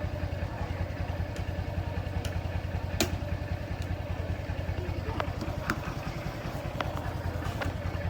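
Motorcycle engine idling steadily with a fast low putter, just started before setting off, with a few sharp clicks over it, the loudest about three seconds in.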